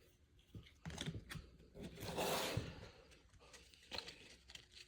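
Trading cards and their packaging being handled: light clicks and rustling, with a longer rustle about two seconds in.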